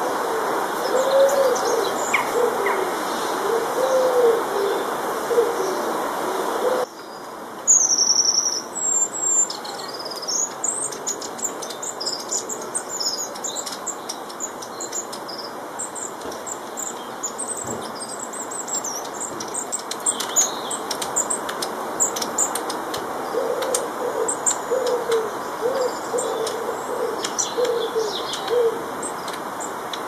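Pigeon cooing in repeated low phrases, then, after a sudden cut about seven seconds in, small garden birds chirping and twittering in high short notes; the cooing comes back near the end, over steady background noise.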